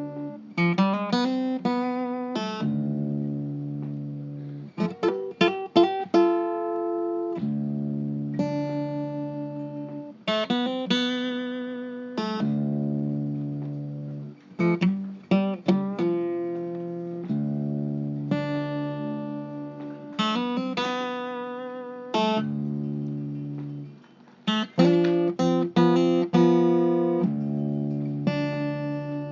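Guitar music: short runs of quickly plucked notes, each settling into held chords that ring and slowly fade, in phrases a few seconds apart.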